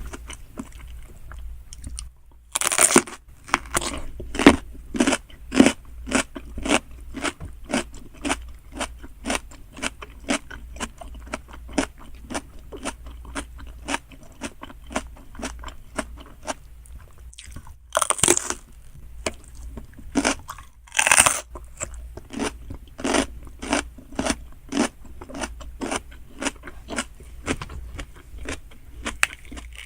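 Close-miked chewing of salmon sushi: a steady run of short wet chews, about two a second. Louder bites come near the start and twice past the middle.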